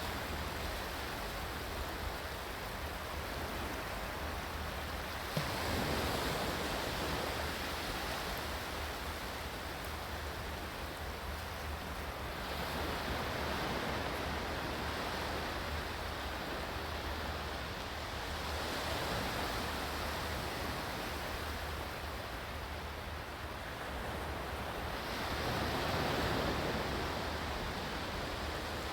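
Ocean waves washing onto a shore: a continuous rushing hiss that swells roughly every six or seven seconds, four times, as each wave comes in and draws back.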